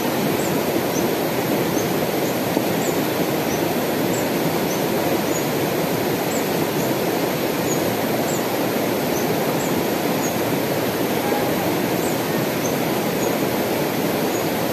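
Shallow mountain river rushing steadily over rocks, with faint high chirps scattered throughout.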